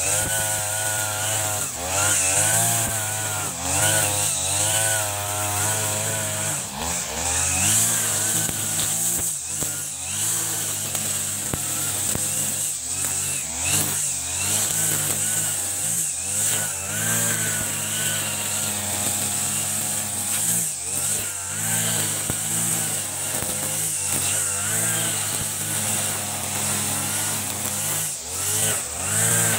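Backpack brush cutter's 40cc-class two-stroke engine running hard while cutting tall grass, its pitch dipping and recovering over and over as the cutting head swings into the grass and out again.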